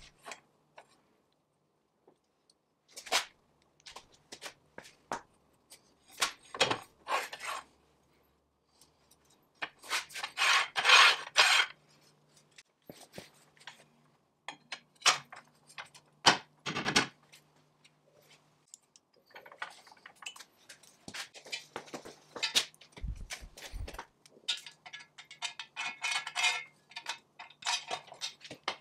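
Cast-iron and steel parts of an early-1900s W.F. & John Barnes No. 5 velocipede lathe being handled and fitted by hand: scattered metal clinks and knocks. There are longer stretches of metal scraping and rubbing about a third of the way in and again through the last third, and a dull thump about two-thirds through, over a faint steady hum.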